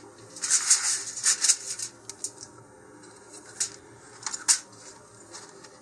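Aluminium foil crinkling as it is pressed and smoothed flat by hand, in several quick rustles over the first second and a half. A few sharp ticks follow near the end.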